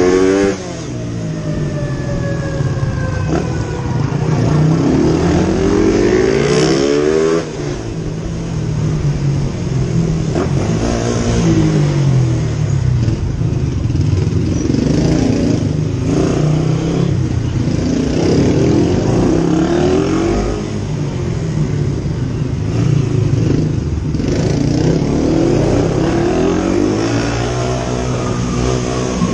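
Small motorcycle engine revving up and dropping back over and over as it accelerates and slows through tight turns, heard from on the bike itself.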